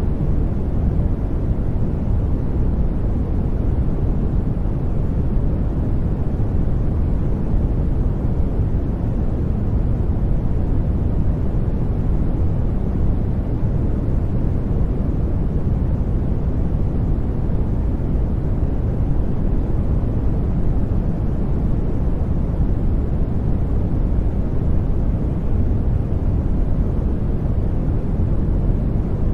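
Brown noise: a steady, deep, even rush with no changes, heaviest in the low end and fading toward the highs.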